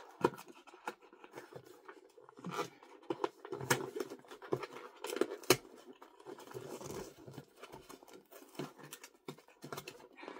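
Hands working at the packaging of a toy box to get it open: irregular scratching, scraping and small clicks.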